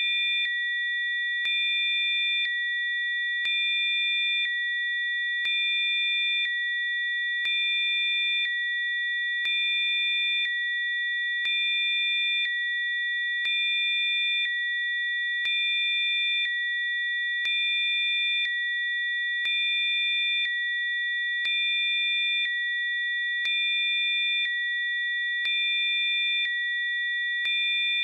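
Rife frequency tones: several steady, high-pitched electronic sine tones sounding together, with a faint click and a slight change in the blend about once a second.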